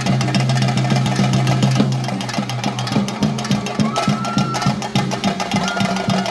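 Rapid, dense drumming of a theyyam's temple percussion ensemble (chenda drums), with a steady low hum beneath. Two short high tones sound about four seconds in and again near the end.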